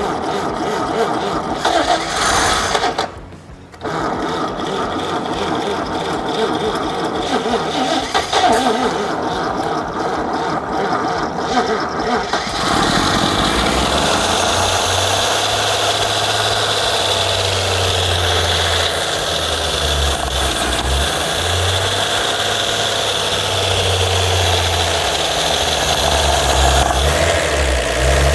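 Freshly rebuilt Chevrolet stovebolt inline-six being started for the first time: starter cranking with a short break about three seconds in, then the engine catches about twelve seconds in and settles into a steady idle.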